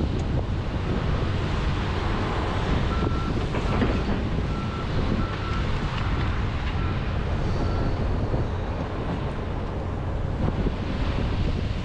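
John Deere 210G excavator's diesel engine running steadily under load, with wind buffeting the microphone. A backup alarm beeps about seven times, from about three to eight seconds in.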